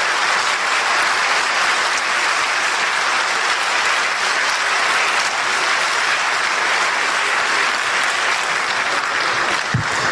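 A large audience in a conference hall applauding steadily, many hands clapping at once.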